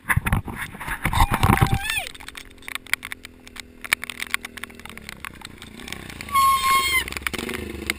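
Small dirt bike engine idling steadily, then revving up and down in the second half. Loud buffeting on the microphone fills the first two seconds, and a short shout comes about three-quarters of the way through.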